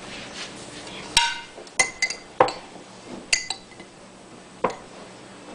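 A spoon clinking against a glass salsa jar as salsa is scooped out: about seven sharp, irregular clinks, a few of them ringing briefly.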